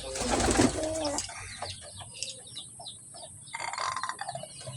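A rooster crows, a held call over the first second, followed by scattered clucking and many short high chirps from birds. A brief rustling burst comes about three and a half seconds in.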